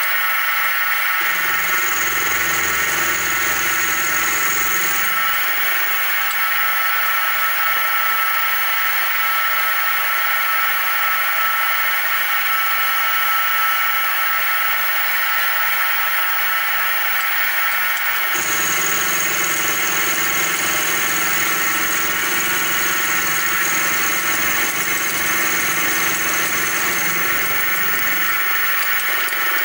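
Sieg SX2P mini-mill spindle running with a steady whine while an end mill takes a light facing cut, about a quarter of a millimetre deep, across a mild steel block. Twice, from about a second to five seconds in and again from about 18 to 27 seconds, the cutting adds a deeper rumble and a thin high squeal.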